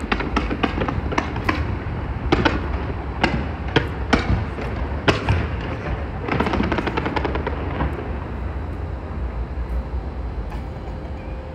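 Large fireworks display: a rapid run of sharp bangs and crackles, thinning out over the last few seconds, over a steady low rumble.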